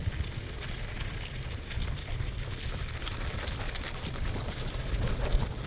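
Wind rumbling on the microphone of a bicycle being ridden, with scattered small clicks and rattles from the bike.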